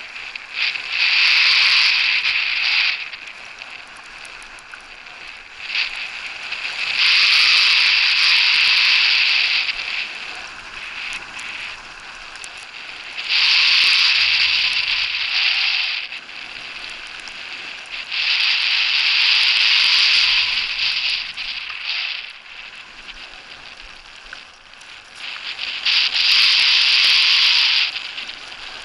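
Skis scraping over hard-packed snow as they carve turns down a groomed piste: five long scrapes of the edges, each two to three seconds, about one every five or six seconds, with quieter gliding between them.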